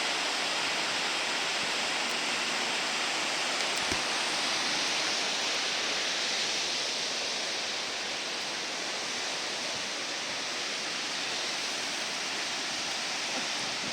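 Steady rushing of the Siffleur River in its gorge below, easing slightly about halfway through.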